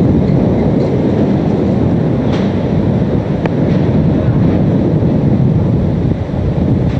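Hurricane-force wind and driving rain buffeting the microphone, a loud steady rumble, with a couple of faint sharp ticks about two and three and a half seconds in.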